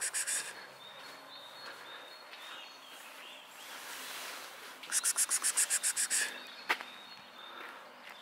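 A bird's rapid rattling call, about eight harsh notes a second, heard twice: the tail of one rattle at the start and a full one of just over a second about five seconds in. Faint short chirps sound in between, and there is a single sharp click shortly after the second rattle.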